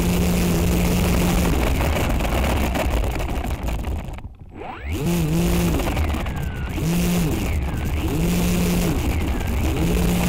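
Electric motor and propellers of a small FPV aircraft buzzing, the pitch rising and falling with the throttle. About four seconds in the sound cuts out for half a second, then comes back with a rising whine as the motors spin up again.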